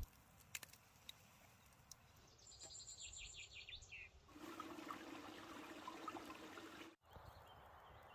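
Near silence: faint outdoor background, with a brief run of quick high chirps a few seconds in and an abrupt cut near the end.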